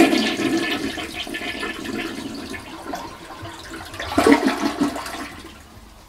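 Toilet flushing with its water supply shut off, to empty the tank: water rushes and swirls down the bowl, swells again briefly about four seconds in, then fades out.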